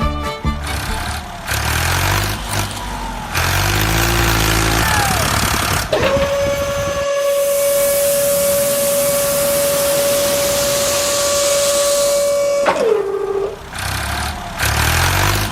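Truck engine running with shifting pitch, then a long steady horn blast of about six seconds with a hiss over it, sliding down in pitch as it ends.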